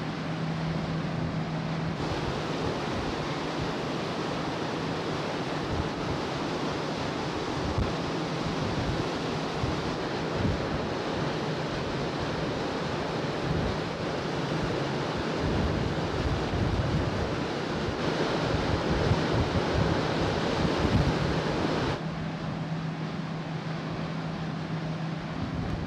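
Wind blowing across the microphone and the rush of the sea on the open deck of a large car ferry underway, over a steady low hum from the ship's engines. The wind noise grows heavier from about two seconds in and eases again about four seconds before the end, when the hum shows through clearly.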